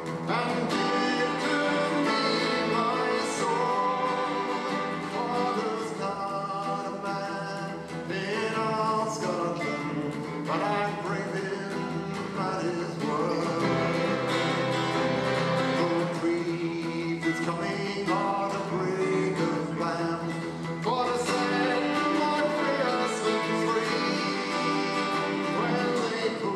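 Live folk song: a man singing over a strummed acoustic guitar, with two violins bowing the accompaniment.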